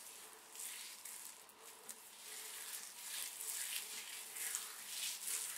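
Aloe vera gel squishing in damp curly hair as fingers work it through the strands: an irregular run of soft, wet, crackly swishes that get a little louder after about two seconds.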